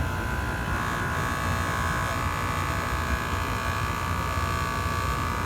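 JOOLTOOL benchtop rotary polishing machine running with a steady motor whine, its pitch stepping lower about two seconds in.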